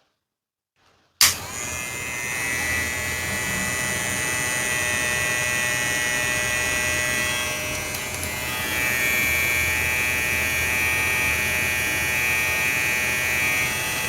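Wmark NG-1060 cordless hair clipper switched on with a click about a second in, then its motor and blade running with a steady buzz.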